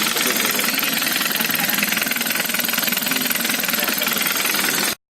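Hyundai Avante MD's 1.6 GDI (G4FD) four-cylinder engine running with a fast, even metallic knocking: the engine knock that is the sign of a worn or faulty motor. It cuts off suddenly near the end.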